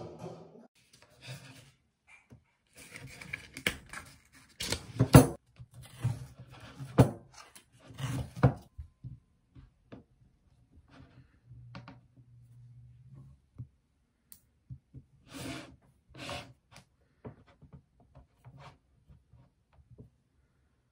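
Tabletop handling sounds: knocks and scrapes of a paper ice-cream tub and its lid, and a metal spoon scraping and scooping firm ice cream out of the tub, in short irregular strokes.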